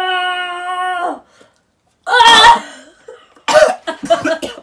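A long held vocal cry at a steady pitch, then a man coughing and gagging in loud rough bursts, once about two seconds in and again several times near the end, on a mouthful of soggy, water-soaked pancake.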